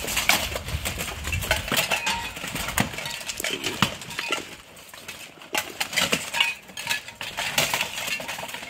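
Steel plate armour clanking and clashing as armoured fighters grapple and strike at close quarters: many irregular sharp metal knocks and clinks, with a brief lull about halfway through.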